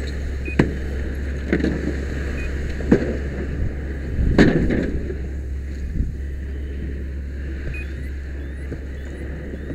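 Steady low drone of a running engine, a fire engine's pump, under the rush of a hose stream on burned wall framing. A few knocks and clatters of burned debris break through, the loudest about four and a half seconds in.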